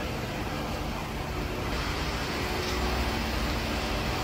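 Makino A55 horizontal machining center running: a steady mechanical hum and hiss with a low rumble, the hiss growing louder about two seconds in.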